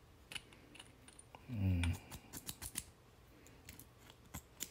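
Brass quick-connect fittings for a pressure washer wand, worked together by hand: a series of small sharp metal clicks as the coupler is fitted and locks, with a cluster of clicks just after the middle. A brief murmured word about a second and a half in is the loudest sound.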